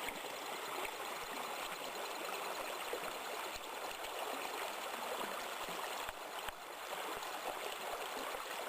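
A shallow creek babbling and trickling over the ground in a steady stream, running after torrential rain.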